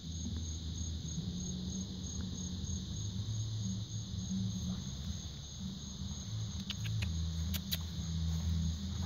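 Evening insects chirping in a steady, evenly pulsing high trill, over low bass notes from a neighbour's music playing at a distance. A few soft clicks come about seven seconds in.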